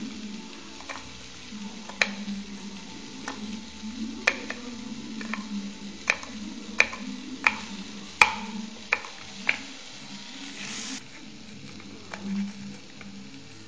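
A series of light, irregularly spaced taps and clicks over a low steady hum, with a short rising hiss that cuts off about eleven seconds in.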